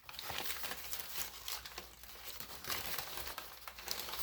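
Packaging being handled and unwrapped by hand: irregular crinkling and rustling of wrapping, with a little tearing.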